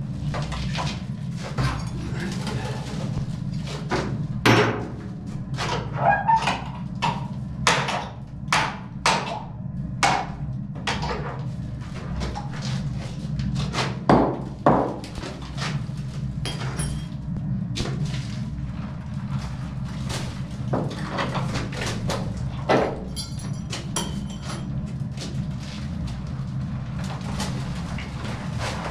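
Irregular sharp knocks and bangs of wooden boards boxing in a pipe shaft being knocked and pried loose, most frequent in the first half, over a steady low hum.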